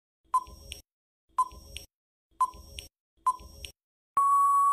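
Quiz countdown-timer sound effect: four short double ticks about a second apart, then a long steady beep near the end as the countdown runs out.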